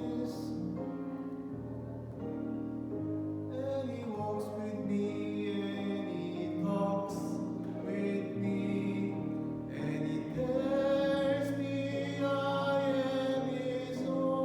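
Sung worship music: voices singing sustained, slow-moving lines over instrumental accompaniment.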